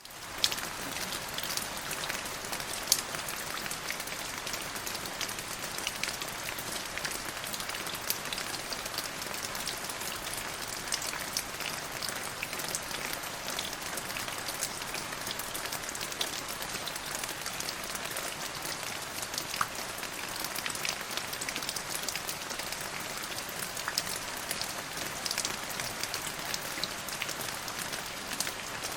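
Steady rain falling on a hard surface, a dense patter with many separate drop ticks standing out, starting up right after a brief silence.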